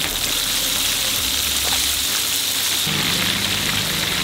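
Hot oil sizzling steadily as battered chicken pieces deep-fry in a large iron kadai. A low steady tone joins about three seconds in.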